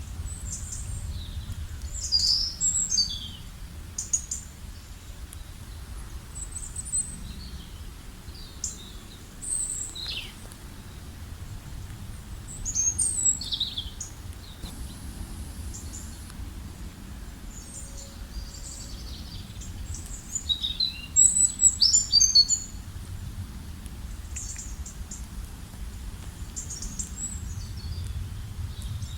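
Small songbirds chirping and singing in short, quick phrases, the busiest and loudest flurry about two-thirds of the way through, over a steady low background rumble.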